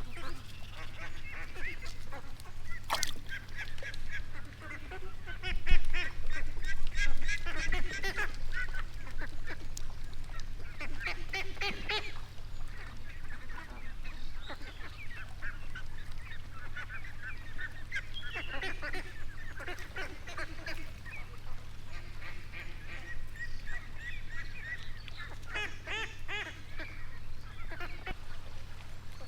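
Waterfowl calling over and over in short nasal honks and quacks, in bursts through the whole stretch. Under them runs a steady low rumble, with a louder patch of low thumps a few seconds in.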